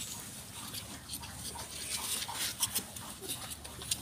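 Three-day-old puppies nursing from their mother: small irregular suckling clicks and soft rustling against the bedding.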